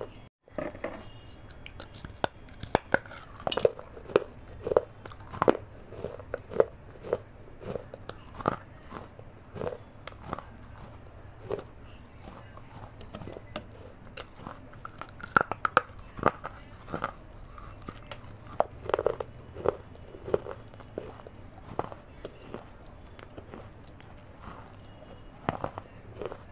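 Pieces of a fired terracotta clay pot being bitten and chewed, close to the mic. Sharp, irregular crunches come about one or two a second, in runs of chewing.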